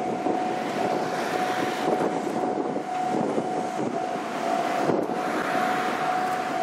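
Wind buffeting the microphone over a steady rushing noise, with a single steady high-pitched tone running underneath.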